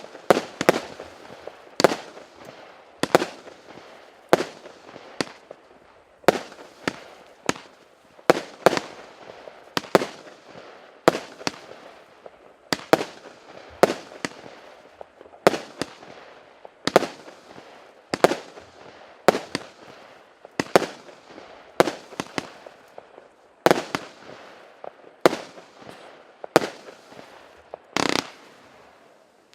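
A 258-shot, 0.8-inch consumer firework cake firing shot after shot, about one to two bangs a second, each launch followed by a short fading crackle.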